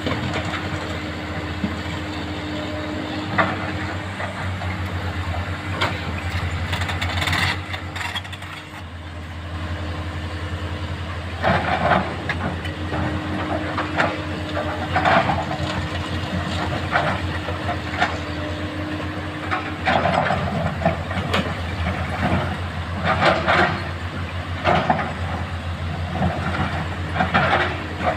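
Excavator diesel engine running steadily under load, with a steady whine that drops out and returns. From about twelve seconds in it is joined by repeated short bursts of noise as the machine works the sand and rocks.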